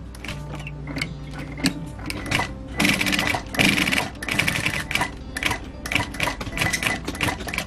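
Industrial sewing machine stitching through leather: the motor hums under a run of sharp needle-stroke clicks, which speed up into a faster, louder run about three seconds in.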